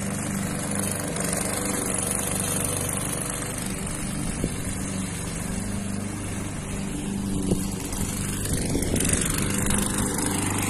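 Petrol push lawn mower running at a steady pace while being pushed over grass. Two brief knocks come through, about four and a half and seven and a half seconds in.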